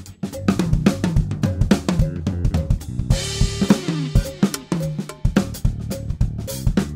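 Acoustic drum kit played in a steady groove of snare, bass drum and cymbal strokes, with a cymbal crash ringing out about three seconds in, over a backing track.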